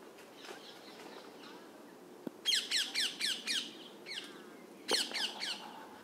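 Rose-ringed parakeets calling in quick runs of short calls, each falling in pitch: about six in a row halfway through, a few fainter ones after, and another short run near the end.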